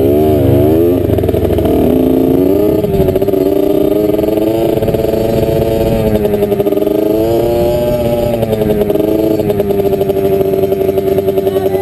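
Dirt bike engine running while being ridden, its pitch rising and falling with the throttle.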